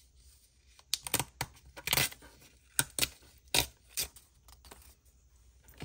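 A thin book page torn along the ridged edge of a tearing ruler, in a series of short rips between about one and four seconds in.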